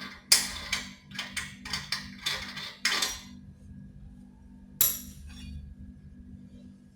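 Metal clinking and knocking: a quick run of sharp metallic knocks for about three seconds, then a single sharp click near five seconds, over a low steady hum.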